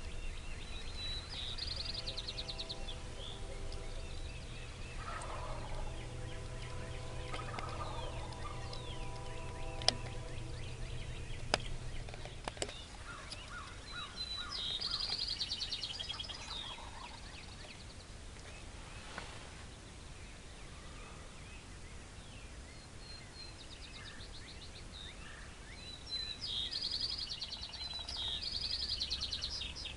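Wild turkeys gobbling a good way off, a rattling gobble heard three times, with songbirds chirping between them. A steady low hum runs through the first half, and two sharp clicks come partway through.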